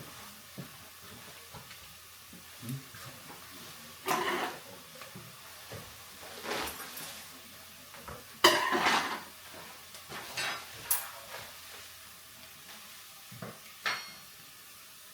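A cooking utensil clanking and scraping against a frying pan in about six separate bursts, the loudest just past halfway, over a faint sizzle of vegetables frying.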